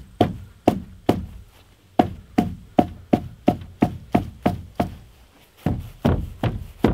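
Sharp wooden knocks, about three a second in runs broken by two short pauses: a pressure-treated 2x8 board being pounded to drive it under the jacked-up edge of a wooden duck house.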